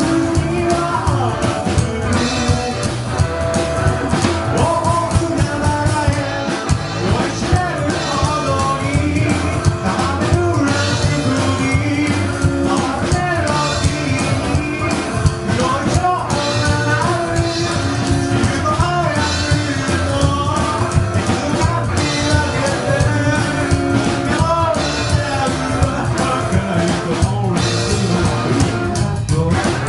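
A rockabilly band playing live: a singer over guitar and drums with a steady beat.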